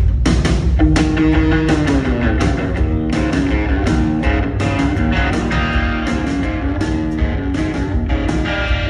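Live rock band playing an instrumental passage: electric guitars, bass and drum kit, with a steady drum beat. A held note bends down in pitch about two seconds in.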